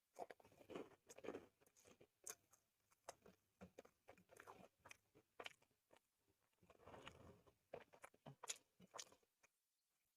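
Close-up eating sounds: a person chewing and biting spicy soy-sauce chicken and corn rice, with scattered soft crunches and mouth clicks.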